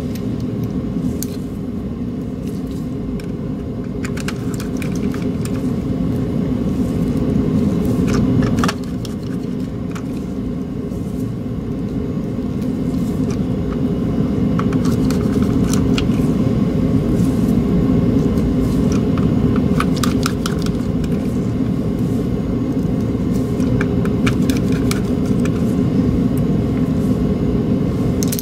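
A steady low rumble, with scattered light clicks and taps from a small screwdriver and plastic parts as a computer mouse's shell is screwed back together.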